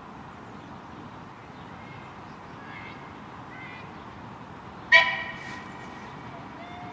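A short whistle toot from a miniature steam locomotive, 'Tinkerbell'-class 0-4-2T "Petunia", as it approaches; it starts suddenly about five seconds in and fades within about half a second. Faint bird chirps come before it, over a steady outdoor hiss.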